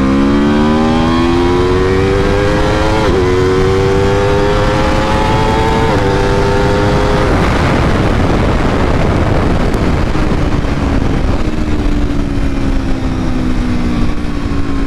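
Aprilia RSV4 Factory 1100's V4 engine at full throttle through the gears, its pitch rising steeply, with quick upshifts about 3 and 6 seconds in. The engine note drops out at about 7 seconds as the throttle closes at speed, leaving a loud wind rush. Near the end a lower engine note slowly falls as the bike slows.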